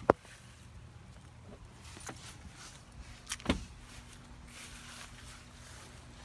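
A sharp click just after the start, a few faint clicks, and a heavier thump about three and a half seconds in, over a low steady hum.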